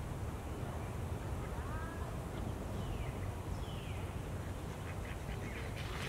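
Mallard ducks quacking on a pond. Near the end comes a burst of splashing and wing flapping as a duck takes off from the water.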